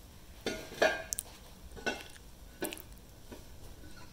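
Cast aluminium bellhousing knocking and clinking against the AX15 transmission case as it is fitted over the alignment dowel pins: about six short metallic knocks spread over a few seconds.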